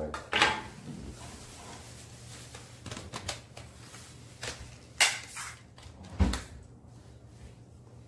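Plastic parts of a cordless stick vacuum being handled and fitted together: scattered clicks and knocks, with a sharp click about five seconds in and a dull thump about a second later, over a faint steady low hum.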